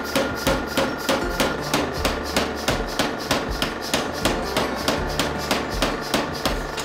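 Mechanical power hammer striking a glowing steel axe head in a steady, even rhythm of about four blows a second, as the eye is drifted and the lugs are forged.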